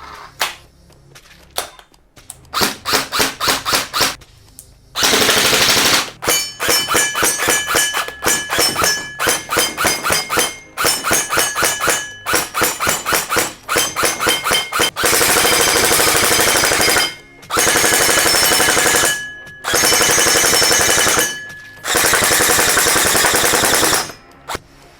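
An SLR-style electric gel blaster firing. It starts with a few single shots, then quick strings of shots at about six a second, then several long full-auto bursts of one to two seconds each.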